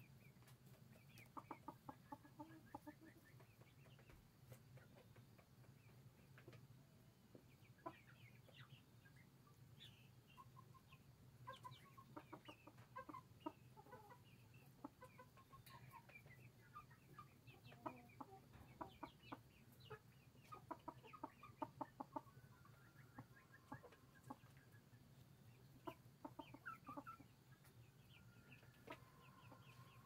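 Silkie chickens clucking quietly, in quick runs of short notes that come and go, with a faint steady low hum underneath.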